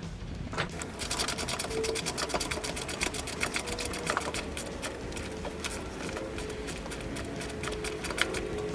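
Socket ratchet wrench with an extension clicking in a quick steady run as it drives a long wheel bolt back into a lawn tractor's wheel hub.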